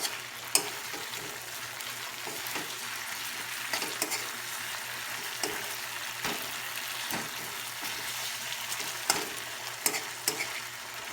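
Marinated chicken wings frying in margarine in a pan, sizzling steadily while they are stirred, with scattered clicks of the utensil against the pan.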